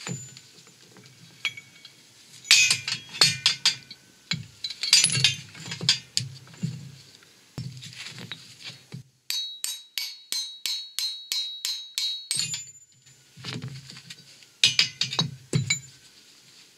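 Metal parts of a car's front wheel hub clinking and knocking as they are handled: the hub carrier and the loose wheel bearing pieces, in scattered bursts. About halfway through there is a run of about a dozen evenly spaced sharp metallic clicks, about four a second.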